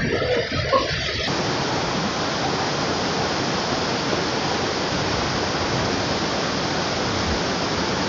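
Steady rushing of a waterfall cascading, coming in abruptly about a second in after a short stretch of other rougher noise.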